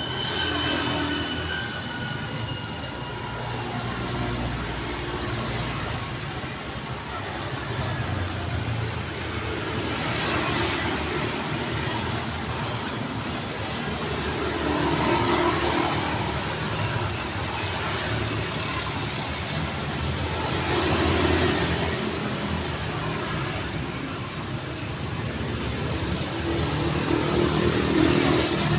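City road traffic: a continuous rumble of cars, with vehicles passing close by about every five or six seconds, each swelling and fading. A high-pitched squeal fades out in the first couple of seconds.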